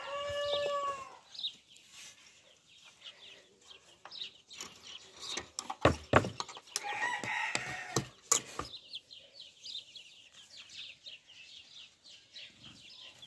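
Chickens: a rooster's crow trails off in the first second, then a broody hen clucks a few times about seven seconds in, with faint chick peeps, among scattered knocks and rustling.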